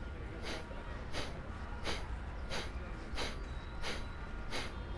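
Kapalbhati breathing: short, forceful nasal exhalations through one nostril, seven strokes in an even rhythm of about three every two seconds.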